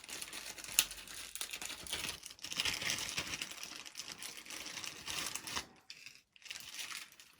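Rustling and light clicking of wires and small parts being handled on a workbench, with a sharp click about a second in.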